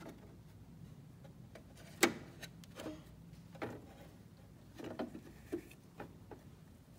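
Small clicks and taps of toy figures and plastic furniture being handled inside a toy dollhouse, with one sharper knock about two seconds in.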